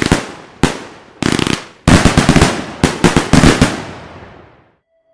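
Luypaers Black Tiger 100-shot 30 mm firework cake firing in short volleys of rapid shots: a brief cluster, a single shot, another cluster, then a longer dense volley about two seconds in that echoes away to nothing.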